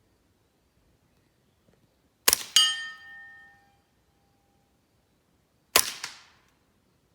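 Two suppressed shots from a Smith & Wesson M&P 15-22 .22 LR rifle with a Gemtech G522 suppressor, firing subsonic rounds, a little over three seconds apart. The first shot is followed a fraction of a second later by a sharp metallic ring that lasts about a second.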